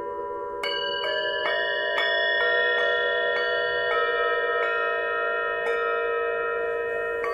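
Tibetan singing bowls ringing with a slow wavering hum. Just under a second in, a run of mallet strikes begins, about two a second at first, then further apart, each leaving a bright ringing tone that layers over the others.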